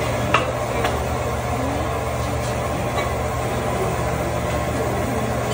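Food cooking on a hibachi griddle over a steady low hum, with one sharp metal click of the chef's spatula on the griddle about a third of a second in.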